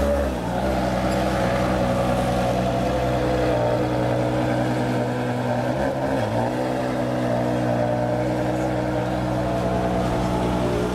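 Ferrari 599 GTO's 6.0-litre V12 idling steadily while stationary, its idle dipping briefly in pitch near the start and again about six seconds in.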